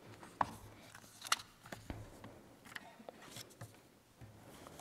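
Scattered soft clicks and paper rustling of a book being handled at a lectern microphone, the sharpest click about a second in.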